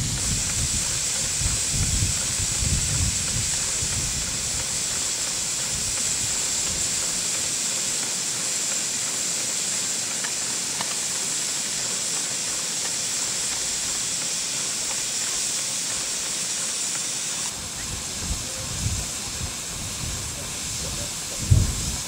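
Scale Fowler Super BA ploughing engine standing in steam, giving a steady high hiss of escaping steam. There are a few low bumps near the start and near the end.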